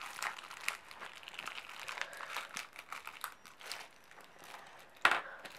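Crinkling and rustling of plastic wrapping handled by gloved hands, irregular and crackly, with a louder rustle about five seconds in.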